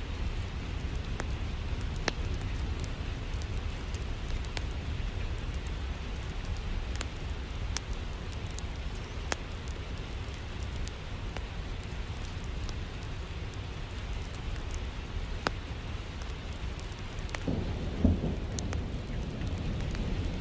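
Steady rain with a low rumbling background and scattered sharp crackles, and a roll of thunder swelling near the end.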